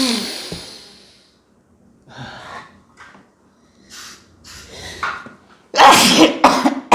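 A person sneezing, set off by herbal sneezing powder snuffed up a congested nose. One sneeze comes at the start and quieter breaths follow. Near the end comes a loud double sneeze.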